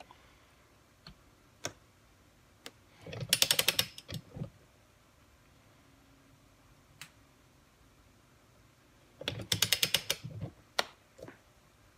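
Harbor Freight click-type torque wrench's ratchet head clicking in two quick runs of about ten clicks as the handle is swung back between pulls on a nut. A few single sharp clicks fall between the runs.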